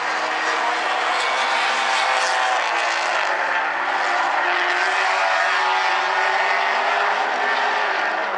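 Several four-cylinder compact race cars racing together. Their engines drone steadily at several overlapping pitches.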